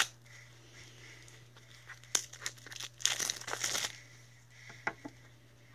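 Toy packaging crinkling and rustling as it is handled and opened, with scattered light clicks and a longer burst of crinkling about three seconds in.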